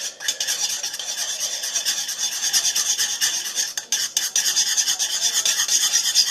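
A utensil stirring fast in a ceramic bowl, scraping and rubbing against the bowl in quick, even strokes as it mixes a thick, lumpy mixture of body wash and salt.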